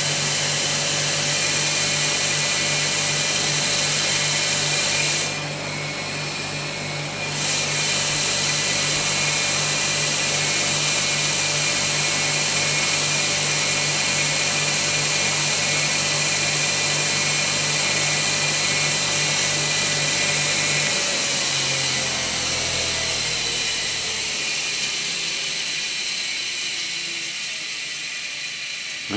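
Bare single-phase electric motor, which lacks its start capacitor, running steadily with a cotton buffing wheel on its shaft while a coin is polished against the wheel, giving a steady hum with a high hiss that dips briefly about five seconds in. About 21 seconds in, the motor is switched off and winds down, its hum falling in pitch and fading.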